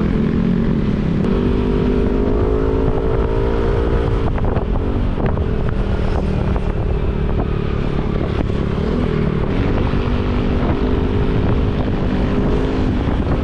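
Motorcycle engine through a Villain GP2 aftermarket exhaust, running under way, its pitch rising and falling with the throttle, with a few sharp ticks. The rider says the muffler has been knocked loose and now shakes and rattles like a tin can when the engine runs.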